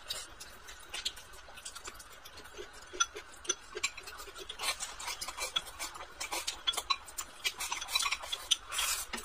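Wooden chopsticks clicking and scraping against a glass rice bowl as rice and food are shoveled into the mouth, with chewing. Quick, light clicks that come more often in the second half.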